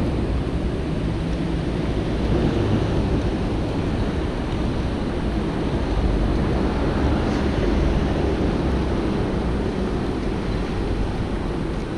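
Rain and city street noise: a steady wash of sound with a heavy, uneven low rumble.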